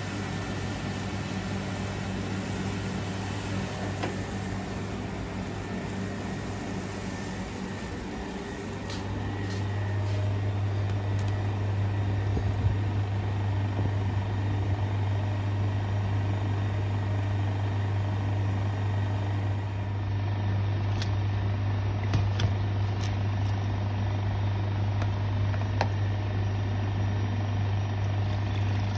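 Steady low hum of kitchen machinery, growing louder and firmer about a third of the way in, with a few light clicks and knocks in the second half.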